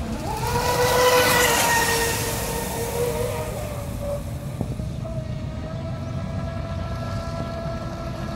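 Radio-controlled electric speedboat passing at speed: the high-pitched whine of its electric motor and the hiss of its hull over the water swell to their loudest about a second in. The sound then eases off to a steadier, quieter whine as the boat runs on across the lake.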